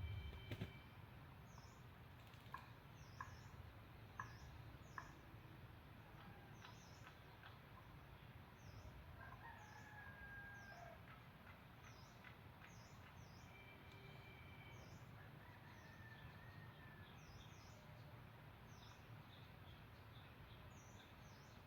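Faint, distant red junglefowl crowing, heard briefly about ten seconds in and again near sixteen seconds, over high thin chirps repeating about once a second and a few light clicks early on.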